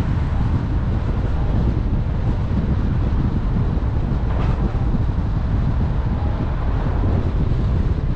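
Steady rumble of wind over the microphone, together with the road and tyre noise of a car driving at city speed.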